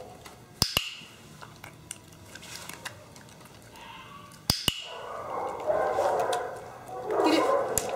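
Small white terrier vocalizing in drawn-out sounds with its muzzle raised, loudest over the last three seconds. Two sharp double clicks come earlier, just under a second in and again past four seconds.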